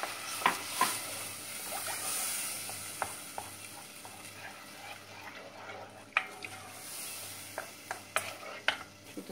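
Tomato paste and purée sizzling in a pot as a wooden spoon stirs and scrapes it. The sizzle fades after the first couple of seconds, the heat having just been turned down. The spoon knocks sharply against the pot's side several times.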